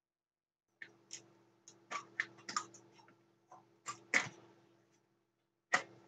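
A series of small sharp clicks and taps, about ten in a few seconds and the loudest about four seconds in: power transistors and their screws being worked off an amplifier's heatsink and handled on the bench.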